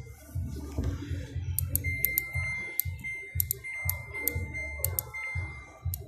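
A steady high electronic beep tone held for about three seconds, starting about two seconds in, with scattered sharp clicks. A low pulsing beat runs underneath.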